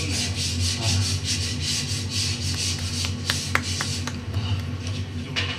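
Electric random orbital sander running on wooden cutting boards, a rhythmic rasping of about five strokes a second that fades about three seconds in. A few sharp clicks follow.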